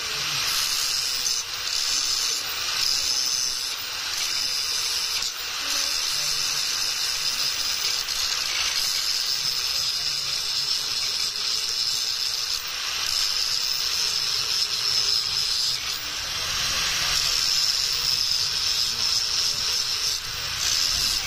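A steady, loud hissing noise with no distinct hammer blows.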